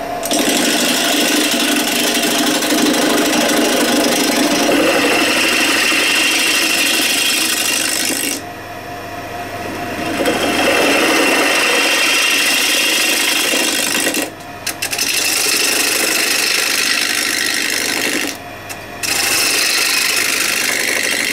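A hand-held turning tool cuts a spinning block of pitch pine on a wood lathe, with a loud rasping hiss of shavings coming off the wood. The cut breaks off for about a second and a half some eight seconds in, and twice more briefly later, as the tool lifts from the wood.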